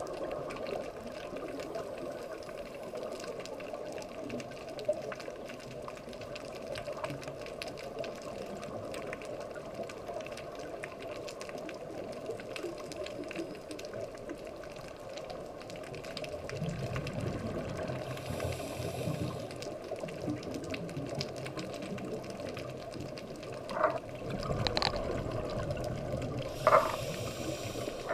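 Underwater sound through a dive camera's housing: a steady watery hiss, joined in the second half by the low rumbling bubbles of a scuba diver's regulator breathing. A few short sharp clicks near the end.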